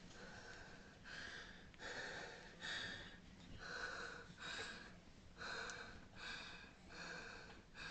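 A person breathing hard and fast close to the microphone, short breathy puffs a little more than one a second.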